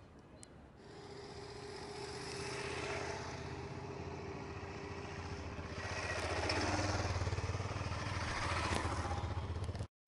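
A motor engine running, growing louder over several seconds, then cut off suddenly near the end.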